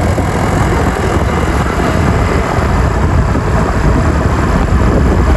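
Large tour bus's engine running steadily under way, a dense low rumble with road noise.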